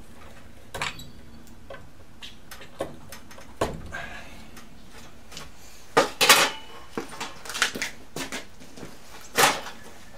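Scattered metallic clicks and clinks of hand tools and electrical wire being handled while wiring a light switch, with the loudest clatter about six seconds in and again near the end.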